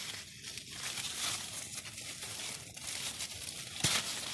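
Cucumber vine leaves rustling and crinkling as hands push through them and pull at a ripe cucumber, with one sharp snap near the end as the stem breaks.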